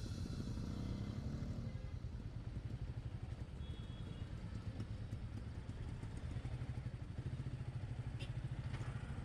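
Royal Enfield Meteor 350's single-cylinder engine running with a steady, even low pulsing, heard fairly quietly.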